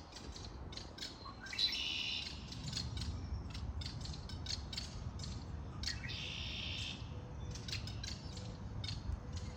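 Songbirds chirping in spring: many quick, sharp chip notes, with two buzzy trills of about a second each, the first near two seconds in and the second about six seconds in. A low rumble runs underneath.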